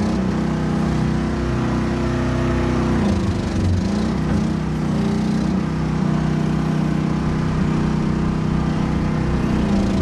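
Small excavator's engine running steadily, its pitch sagging and recovering a few times as the load changes.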